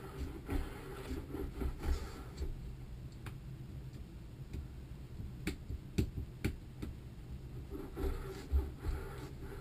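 Metal parts of a Kanzaki gearbox shaft assembly being handled and fitted by hand, giving scattered light metallic clicks and knocks with some rubbing, over a steady low hum.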